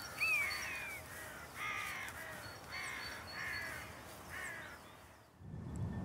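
Crows calling, about six calls spaced roughly a second apart, fading out about five seconds in; music comes in just before the end.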